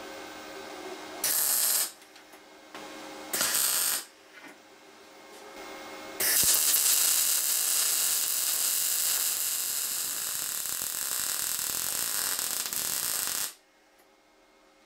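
Electric welding arc from a VEVOR MIG-200D3 welder on a small steel T-joint: two short tack welds, about a second and a half and three and a half seconds in, then one continuous weld from about six seconds in that cuts off abruptly near the end. The arc is a steady, even hiss while it burns.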